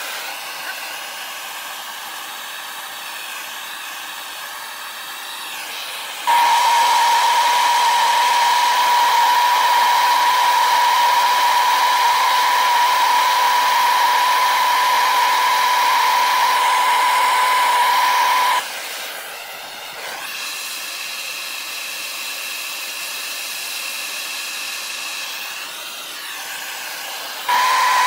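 Hand-held gas soldering torch burning with a steady hiss as it heats small brass parts for soldering. Twice it rises into a loud, steady high tone: from about six seconds in until about eighteen, and again near the end.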